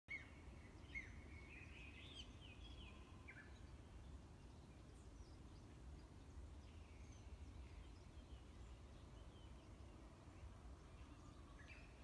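A songbird singing: a quick run of bright chirps and short pitch slides in the first few seconds, then fainter scattered calls, and another call near the end. A faint low rumble runs underneath.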